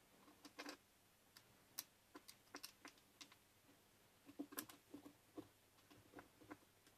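Screwdriver turning small screws into an aluminium track on a plywood board by hand: faint, irregular clicks and ticks of the tip working in the screw heads, bunched in a few quick runs.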